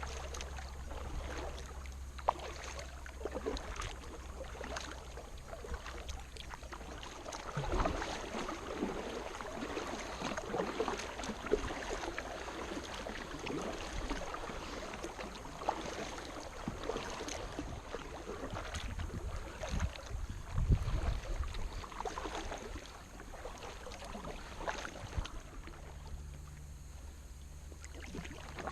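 Kayak paddling: the paddle blades dip and splash in the water and drip, with water lapping against the hull of a Sun Dolphin Excursion 12 SS sit-on-top kayak in irregular strokes.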